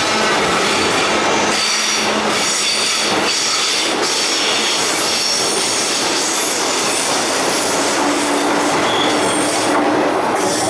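Metro train running through a tight curve, its wheels squealing in several high, steady tones over the rolling rumble. A few knocks sound in the first few seconds.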